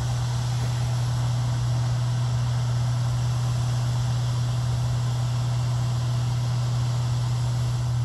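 Tractor engine idling with a steady low hum.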